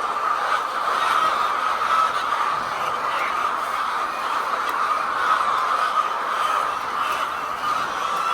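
Steady din of a large flock of laying hens in a poultry shed, many birds calling at once and blending into a continuous mass of clucking.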